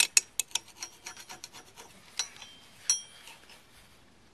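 Cold chisel scraping and clicking against a water pump's gasket flange, chipping off old gasket and paint residue. A quick run of sharp scrapes at first, then sparser strokes, with two louder clicks about two and three seconds in, the second ringing briefly.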